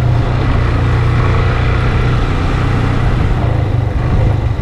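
Motorcycle engine running steadily at low speed on a rough dirt road, with road and wind noise. Its hum drops about four and a half seconds in as the bike slows.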